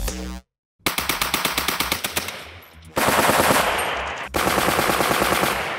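A water-cooled Vickers heavy machine gun firing .303 rounds in short bursts of rapid automatic fire, a fast, even rattle of shots. The bursts stop and restart twice.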